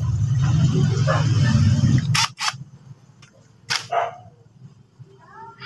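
A loud low rumble for about two seconds, then a dog barking twice, a little after two seconds and near four seconds.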